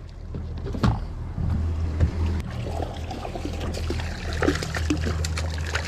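Water splashing and trickling at the side of a boat, over a low steady hum, with scattered small clicks and knocks.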